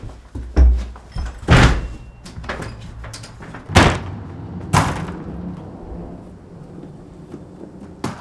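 Doors banging and rattling as a security screen door is worked open: four loud bangs in the first five seconds, then lighter clatter and a latch click near the end.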